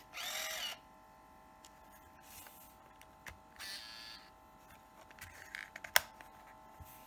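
Olympus SuperZoom 80G compact 35mm film camera's small electric motor whirring briefly, once in the first second and again about three and a half seconds in, then a sharp click about six seconds in.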